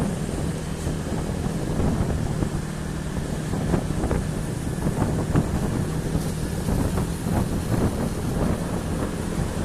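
Vehicle engine running steadily with wind buffeting the microphone, and frequent knocks and rattles throughout.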